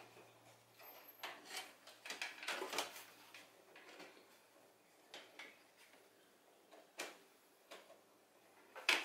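Light clicks, taps and scrapes of a metal mesh radiator guard being handled and worked into place on a motorcycle, with a cluster of small knocks in the first few seconds and a sharper knock near the end.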